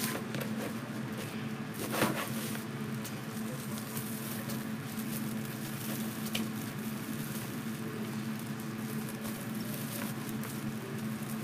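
Foil deco mesh rustling and crinkling as it is handled and fluffed on a wire wreath frame, with a sharper crinkle about two seconds in, over a steady low hum.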